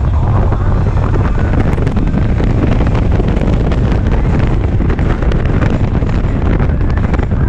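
Harley-Davidson Ultra Limited's V-twin engine running steadily at road speed, its low rumble mixed with heavy wind buffeting on the microphone.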